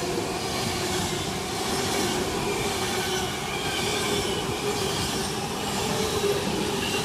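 Class 390 Pendolino electric train passing non-stop through a station platform: a steady rush of wheel and rail noise with a faint whine of wheels on the rails.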